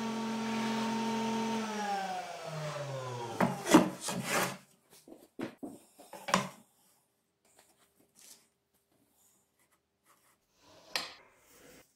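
A table-mounted wood router running steadily, then switched off and spinning down with a falling whine that dies away about three and a half seconds in. Then wood and a steel ruler are knocked and slid on the table top, loudest just after the router stops, again about six seconds in and near the end.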